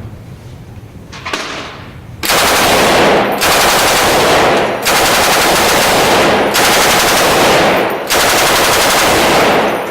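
Machine gun firing on full auto in five long bursts of over a second each, separated by brief pauses, starting about two seconds in.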